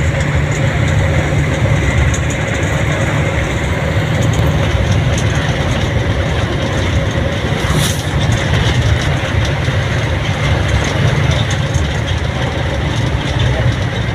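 Steady road and engine noise of a moving vehicle, a constant low rumble with a hiss over it.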